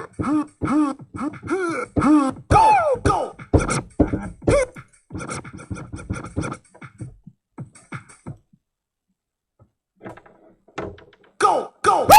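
Digital keyboard playing its built-in sampled sound effects: a rapid run of short, pitched, voice-like sounds that arch up and down in pitch, thinning out about five seconds in and stopping for a moment before sharp hits start again near the end.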